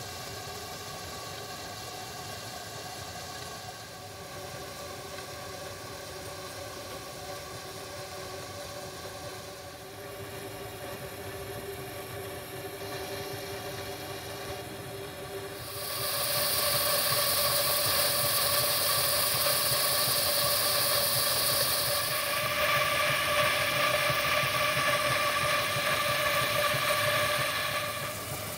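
3-inch scale Aveling & Porter steam tractor standing in steam with a low steady hiss and hum. About halfway through, a much louder hiss of escaping steam starts and holds for about twelve seconds, changing tone partway, then drops back near the end.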